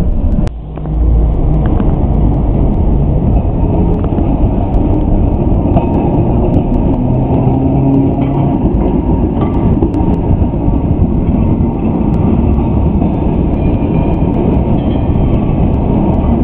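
Steady rumble of a Basel tram running along street track, heard from on board.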